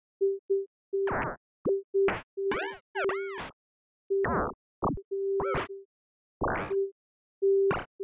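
Synthesizer notes triggered by balls bouncing in a Bouncy Notes MIDI effect, in an irregular pattern. Short beeps at one steady pitch recur throughout, mixed with notes whose pitch arches up and back down and a few short noisy hits.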